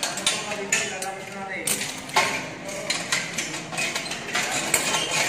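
A scaffold spanner working the bolts of steel tube clamps and swivel couplers as they are taken off scaffold tubes: repeated sharp metal clicks, ratcheting and clinks of metal on metal.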